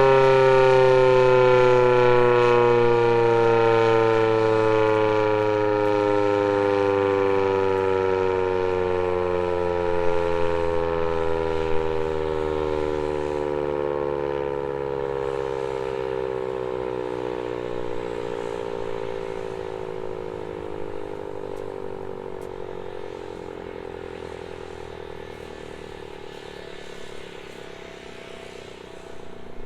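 ASC T-128 outdoor warning siren winding down after its full alert signal: one long, slow fall in pitch while the sound fades away.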